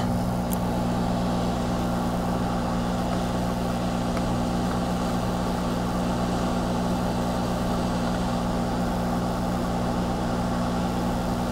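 Aoyue hot air rework station blowing heated air through its nozzle onto a MOSFET while the solder paste under it reflows: a steady hum with an even rush of air.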